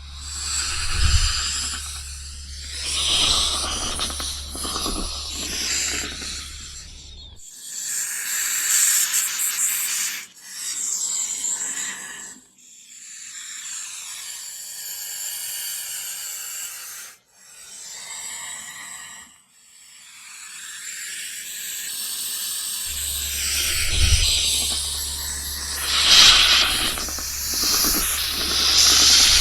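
Snake hissing: a series of long hisses a few seconds each, separated by brief breaks. A steady low hum runs under the hissing at the start and again near the end.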